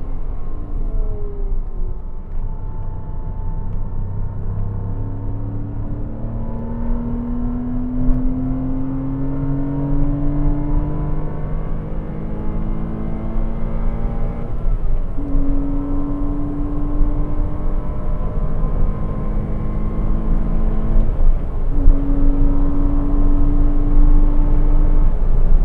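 Porsche Cayman 987's 2.7-litre mid-mounted flat-six engine under way at moderate load, its revs climbing steadily for about twelve seconds, dropping at a gear change about fourteen seconds in, then holding fairly steady with another brief gear change near the end. A constant deep road and wind rumble runs underneath.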